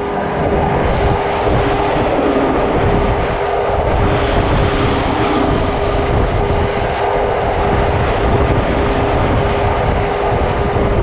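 A train running past: a steady rumble and rush of noise that swells about a second in and holds, with steady ringing tones held underneath.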